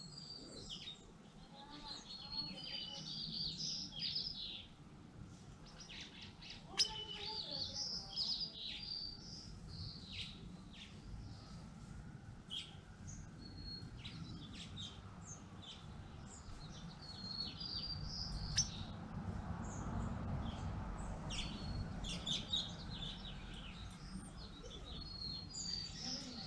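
Several songbirds chirping and singing in short, overlapping twittering phrases, with a low rumble swelling in the background from about halfway through.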